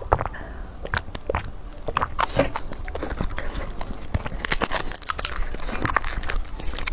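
Close-miked eating sounds: a person biting and chewing food, with many short, irregular crunchy clicks.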